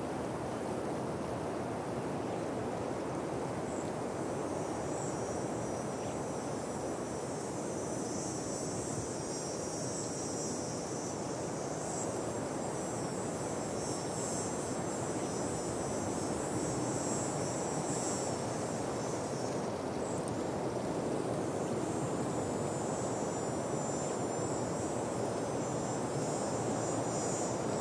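Steady outdoor rushing noise with insects trilling high above it. The trill comes in a few seconds in and drops out briefly about two-thirds of the way through.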